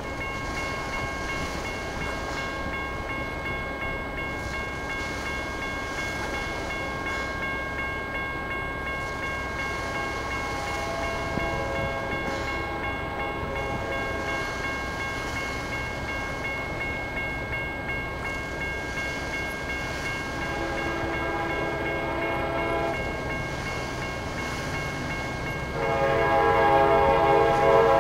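Railroad crossing warning bell ringing steadily with the crossing activated. An approaching train's horn comes in faintly partway through, sounds a stronger blast about two-thirds of the way in, and is much louder near the end.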